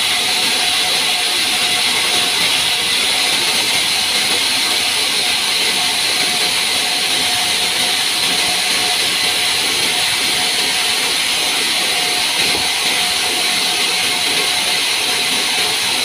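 Vertical band sawmill running, its blade ripping lengthwise through a pine log. It makes a loud, steady, even hiss with a faint steady hum beneath, and it does not break.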